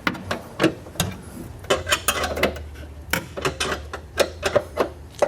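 Hand ratchet clicking in short runs, with metal clinks between strokes, as the nuts on the coilover top mounts are tightened. A low steady hum comes in about a second and a half in.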